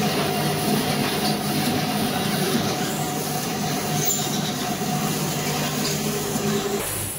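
Sugar packing machine's feeder running, a steady mechanical hum of several tones over the hiss of granulated sugar pouring from a chute onto a stainless steel feed tray. The sound cuts off suddenly near the end.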